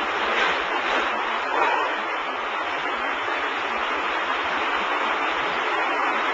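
Steady, even rushing noise of a tilt-tray sortation conveyor running, with no distinct clicks or rhythm.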